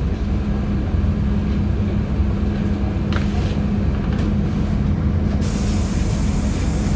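LiAZ-5292.71 natural-gas city bus under way, heard from inside the cabin: a steady engine drone with a low hum, over road rumble. About five seconds in, a hiss comes up and holds.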